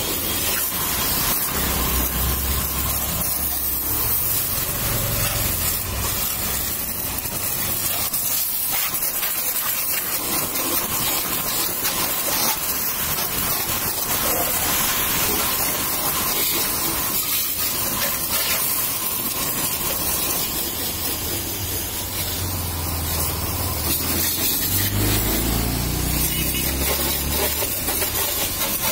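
Pressure-washer spray gun jetting water onto a motorcycle: a steady hiss of the spray with water splattering off the bodywork. A low hum comes and goes twice.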